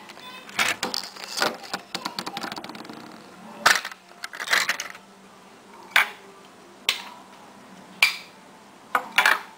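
Hard plastic Lego pieces of a toy fuel truck's tank clicking and knocking as it is opened up and handled, a run of clicks at first, then single sharp clicks every second or two.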